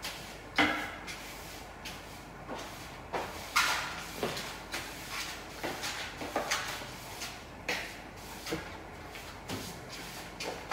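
Irregular knocks, clatters and short scrapes of cleaning with a long-handled broom in a bathroom, a dozen or so, uneven in spacing. The loudest are a sharp knock about half a second in and a longer scrape about three and a half seconds in.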